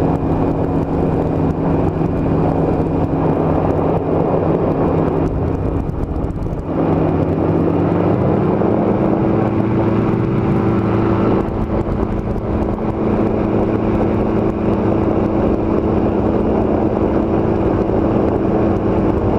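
Powered parachute's engine and propeller running steadily in flight, heard from on board. The engine speeds up a little about seven seconds in, then holds at the higher pitch.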